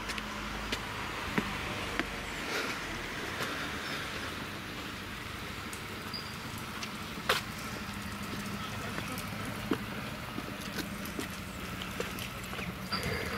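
Outdoor background noise with a steady low hum, broken by a few sharp, irregularly spaced clicks, the loudest about seven seconds in.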